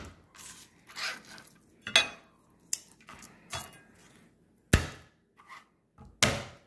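A knife knocking on a wooden cutting board as garlic is prepared: a series of sharp, irregular knocks about a second apart.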